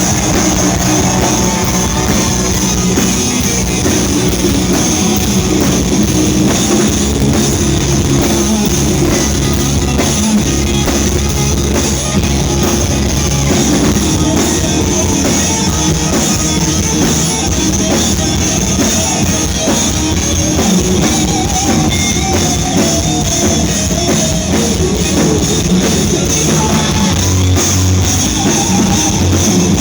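A live rock band playing loud and without a break, with the drum kit prominent over guitars.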